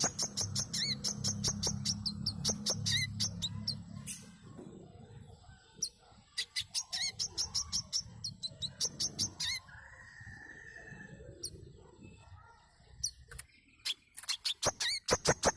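Brown-throated sunbird (burung manggar) calling in fast runs of sharp, high chirps. A low rumble sits beneath the first few seconds, and the chirping thins out near the end before a loud run starts again.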